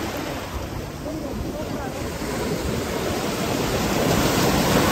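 Sea waves breaking and washing over a rocky shore, a steady rush that swells to its loudest near the end, with wind buffeting the microphone.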